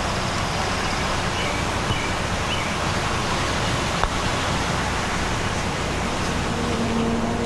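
A putter strikes a golf ball once, a single sharp click about four seconds in, over a steady hiss of open-air background.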